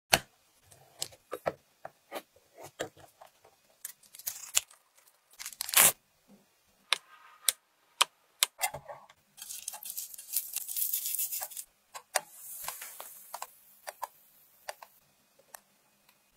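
Close-up kitchen prep sounds: a string of sharp taps and clicks of utensils and packaging on a wooden board, with crinkling and tearing, and the scrape of a blade through a block of hard cheese. The two longest sounds are scraping rushes in the second half.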